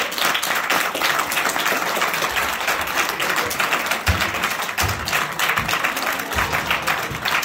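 Audience applauding steadily, with a few dull thumps in the second half.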